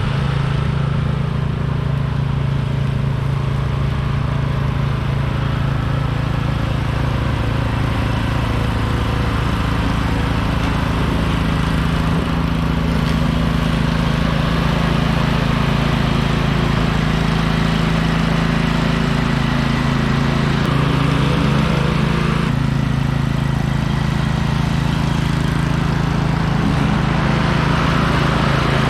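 Troy-Bilt TB30R riding lawn mower's engine running steadily while mowing, its tone shifting slightly about two-thirds of the way through.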